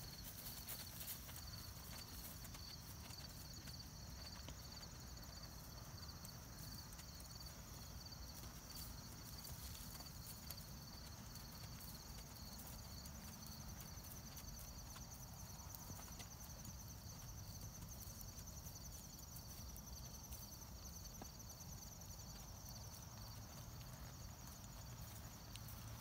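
Horse walking on grass under a rider, its hoofbeats soft and faint.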